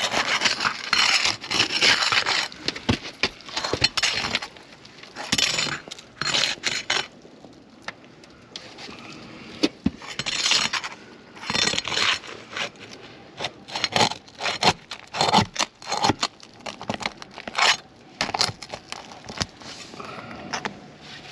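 Asphalt roof shingles being worked loose by hand and tool: irregular scraping and crackling in short bursts, with sharp clicks and clinks. The shingles are too stiff to bend without cracking, so the repair attempt damages them further.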